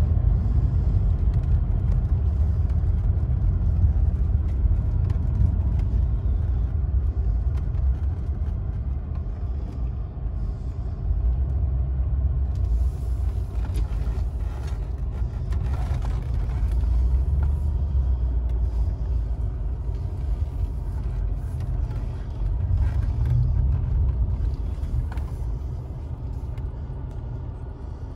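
Mercedes-Benz car driving, its engine and road noise a low rumble heard inside the cabin, swelling and easing a few times.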